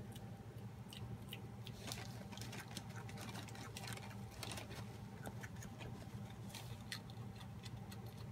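Faint, irregular sharp clicks and rustles, thickest through the middle, over a steady low hum.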